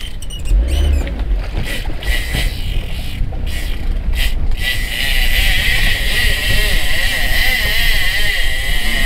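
Small boat's motor running, with wind noise on the microphone and a few knocks in the first half.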